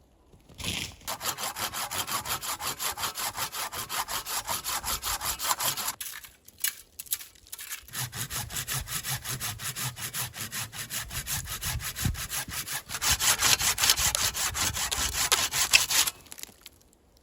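Hand saw cutting through wood with quick, even back-and-forth strokes, in two bouts with a short pause between them.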